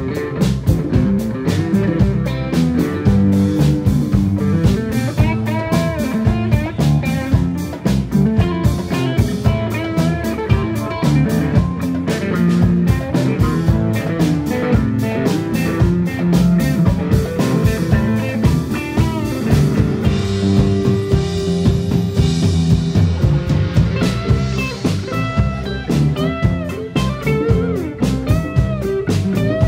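Live rock band playing without vocals: electric guitar lines over bass and a drum kit, at a steady beat.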